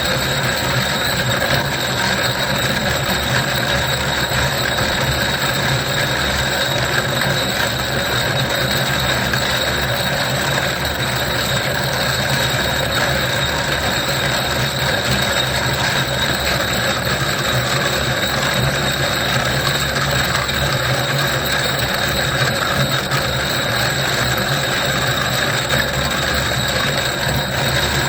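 Stone sphere grinding machine rough-grinding a pre-shaped conglomerate sphere: a steady, unbroken grinding with a constant hum underneath.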